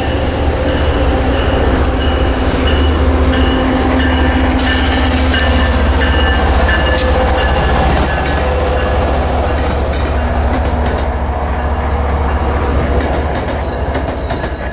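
MBTA commuter train passing close at speed: the diesel locomotive goes by, then its bilevel coaches, with a steady heavy rumble of steel wheels on the rails.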